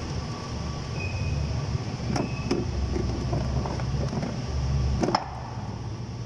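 A car battery being lowered into its tray in the engine bay, with a few knocks of its casing against the tray and bracket. The loudest clunk comes about five seconds in, over a steady low rumble.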